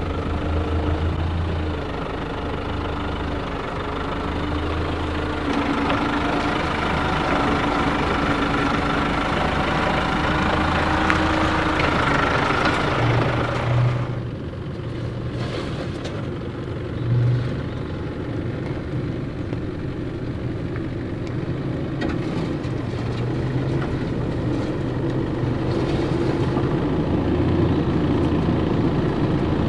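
A four-wheel-drive vehicle's engine working slowly over a rough bush track, with a whine that rises for the first half. About halfway through, the sound turns duller, and a short thud comes a few seconds later.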